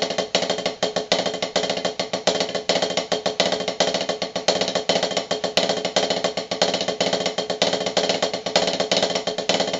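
Snare drum played with sticks in a continuous rudimental pattern: two five-stroke rolls followed by two strokes on the same hand, so the pattern alternates from hand to hand, with quick, even strokes and a steady drum ring.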